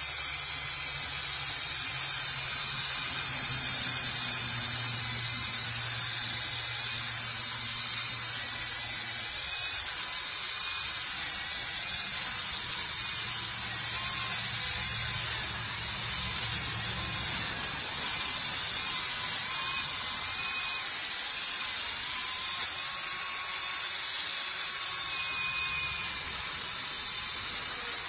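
Ryobi 40V brushless battery chainsaw running as it cuts into a small tree trunk: a steady whirring hiss of the motor and chain, with a low hum that fades about two-thirds of the way through.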